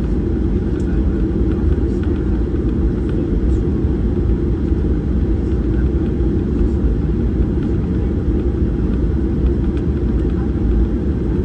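Steady rumble of a Boeing 737-800 heard from inside the passenger cabin: engine and airflow noise, deep and even, with no change in pitch or level.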